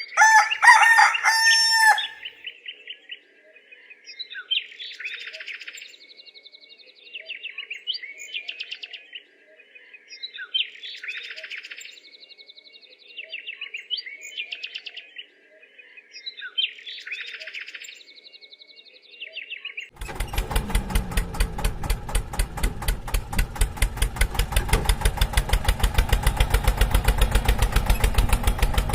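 A rooster crows once, then bird chirps come in short phrases repeating about every three seconds. About twenty seconds in, a louder, rapid, even flutter takes over.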